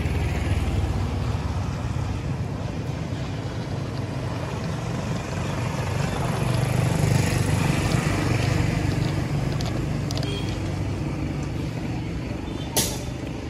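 Small electric motor and plastic gearbox of a wired toy tractor running steadily as it pulls a mud-loaded trolley through muddy water, getting louder in the middle, with one sharp click near the end.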